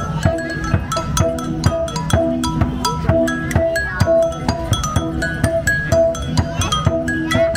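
Đàn đá, the Vietnamese stone lithophone, struck in a quick melody of short ringing pitched notes over a steady percussive beat.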